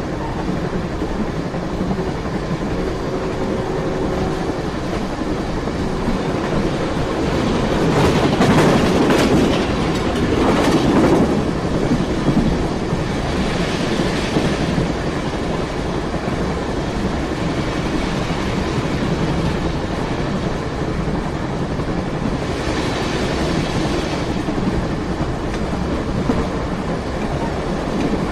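Train running on the rails: a steady heavy rumble with the clatter of wheels on the track, swelling louder for a few seconds about a third of the way in.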